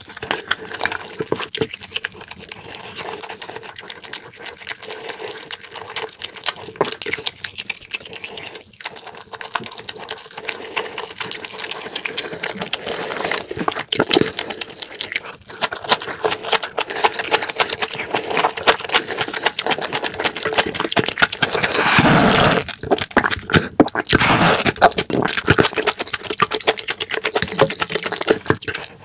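Close-miked eating: rapid wet chewing and lip-smacking, with slurping of soup and bean sprouts. A louder, longer slurp comes about three quarters of the way through.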